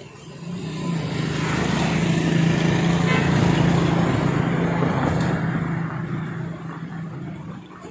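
A motor vehicle driving past, its engine hum and tyre noise building up over the first two seconds, loudest in the middle, and fading away near the end.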